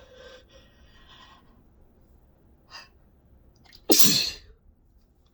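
A person's single loud, wet sneeze about four seconds in, sudden and brief, spraying onto the phone, after breathy catching intakes of breath building up to it.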